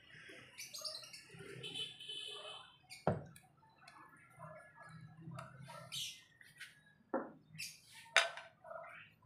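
Birds chirping and squawking, with a few sharp knocks and scrapes of wooden chopsticks stirring noodles in an aluminium mess tin.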